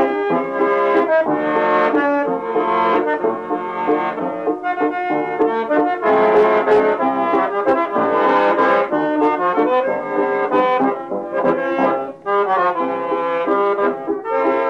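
Waltz played in three parts on piano accordion, piano and melodica, a home multitrack recording made on a Tandberg reel-to-reel tape recorder. The reedy, sustained melody lines sound almost brass-like over the chordal accompaniment, with a short break between phrases about twelve seconds in.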